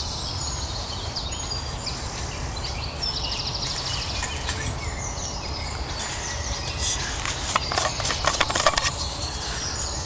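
Birds chirping in woodland, with a short trill about three seconds in. From about seven seconds in, a run of clicks and knocks from a stainless-steel vacuum flask being handled and its cup-lid unscrewed.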